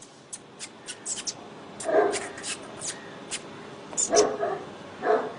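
Large Bully Kutta mastiff-type dog barking: a single bark about two seconds in, two in quick succession near four seconds, and another near the end, with short sharp clicks in between.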